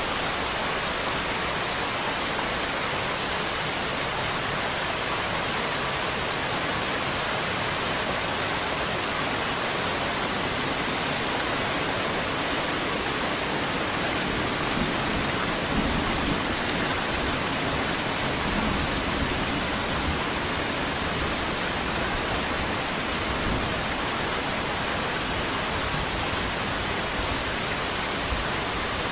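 Steady rainfall, a continuous even hiss of drops landing on surfaces, with a slightly heavier, lower wash about halfway through.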